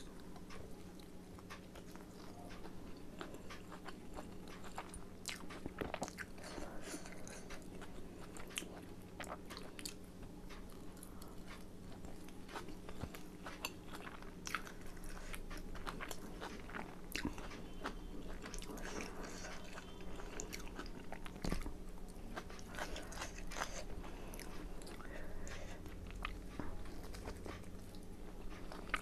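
A person chewing and biting chicken momo dumplings close to the microphone, with many small irregular wet clicks and mouth sounds. A steady low hum runs underneath.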